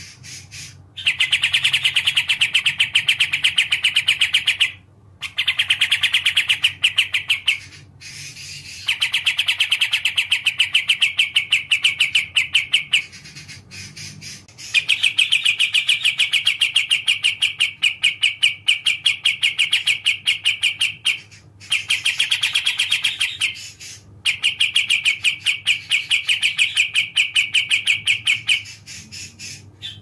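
Kapas tembak bulbul singing: fast, evenly repeated chattering notes in runs of a few seconds, broken by short pauses.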